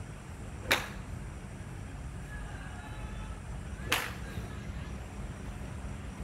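Two sharp cracks of golf clubs striking balls on a driving range, about three seconds apart, over a steady low hum.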